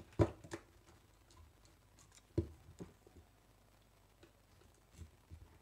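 Scattered clicks and light knocks of a plastic thermal overload relay being handled and a screwdriver working at its terminal screws, the loudest knock about two and a half seconds in.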